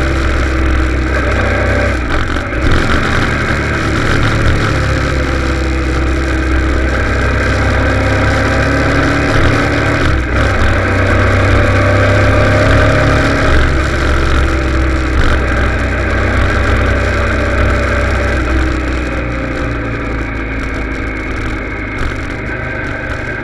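Motorcycle riding at cruising speed: engine running with heavy wind rumble on the microphone, its note gently rising and falling with the throttle, easing off slightly near the end.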